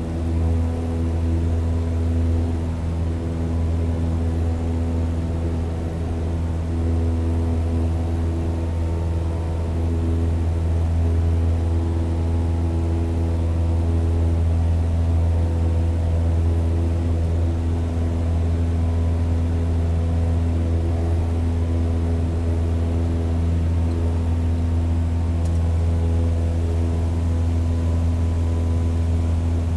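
Propeller plane's engine running at a constant pitch: a low, steady drone with a stack of steady tones above it.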